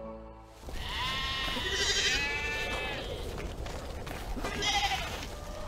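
Sheep bleating: several overlapping wavering calls for about two seconds, then another short bleat near the end.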